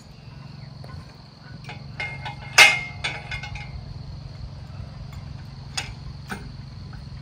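A sharp metallic clank from a hydraulic engine hoist (shop crane) being worked, about two and a half seconds in, followed by a few lighter clicks, over a steady low hum and a constant high insect buzz.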